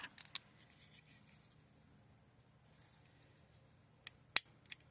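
Small plastic butane lighter being handled, then three sharp clicks near the end as its igniter is tried without catching: the lighter probably needs refilling with butane.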